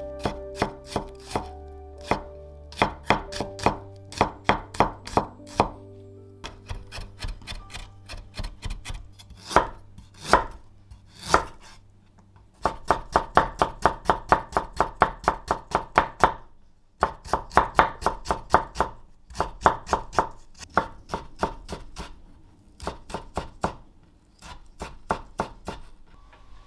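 Kitchen knife chopping on a wooden cutting board: first slicing green onion, then mincing ginger in quick runs of sharp strokes, about three to four a second.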